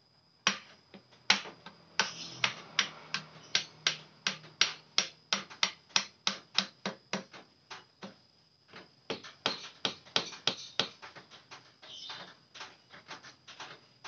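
Soft-faced mallet tapping a seat clamp down onto a BMX frame's seat tube with quick, even knocks, about three a second. The knocks pause briefly a little past halfway and then go on more lightly near the end.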